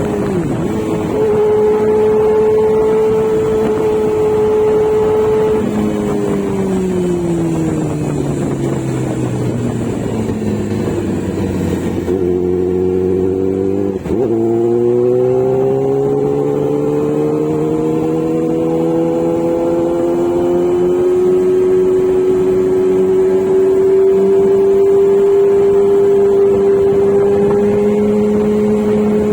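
Kawasaki Z900 inline-four motorcycle engine under way. It holds a steady note, falls in pitch as the bike slows, breaks briefly about two-thirds of the way through as if shifting gear, then rises slowly as it pulls away again.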